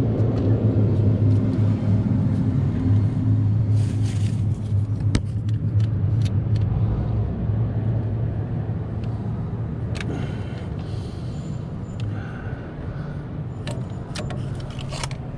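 A steady, engine-like low hum running continuously and slowly getting quieter, with a few sharp clicks and taps over it.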